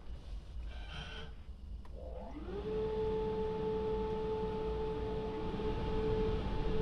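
Rollover car wash's drying blowers starting up, heard from inside the car: about two seconds in a rising whine levels off into a steady tone over the rush of air.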